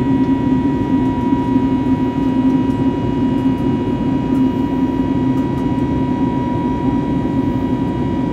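CFM LEAP-1A turbofan engines of an Airbus A320neo running steadily, heard inside the cabin next to the engine: a constant deep rumble with a steady high whine over it.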